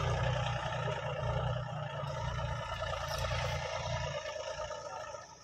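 John Deere tractor's diesel engine running with a deep, pulsing rumble, heard from the driver's seat; the low rumble eases after about four seconds as the engine drops back.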